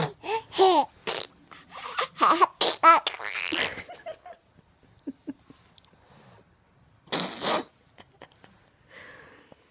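A toddler giggling in quick bursts with wavering pitch through the first four seconds, then one short breathy burst about seven seconds in.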